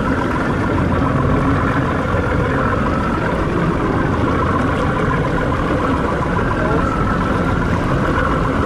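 Motorboat running steadily under way, its engine and the hull's rush through the water blending into a continuous, even noise.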